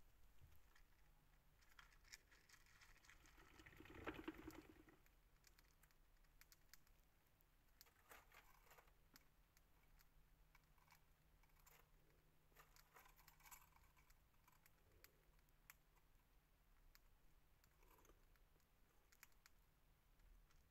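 Faint, irregular crackles and ticks of a fancy mouse nibbling and rustling through dry feed, with a louder rustle about four seconds in.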